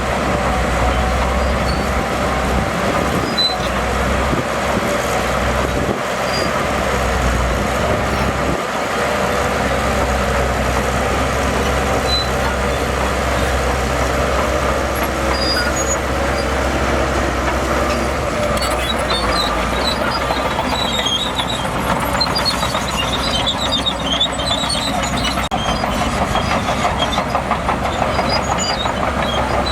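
Heavy diesel earthmoving machinery running steadily under load, a constant low engine drone, with scattered high-pitched squeaks coming in about two-thirds of the way through.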